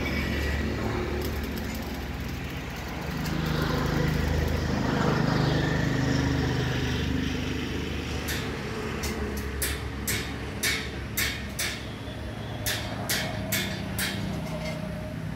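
Steady low engine rumble that swells a few seconds in, with a dozen or so short sharp taps in uneven runs starting about eight seconds in.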